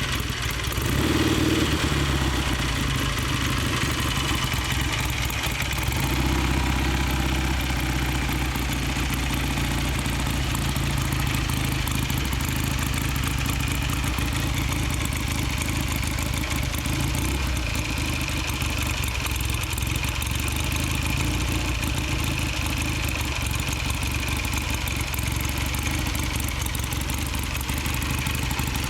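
1951 BSA 500 cc motorcycle engine idling steadily, with a brief rise in revs about a second in.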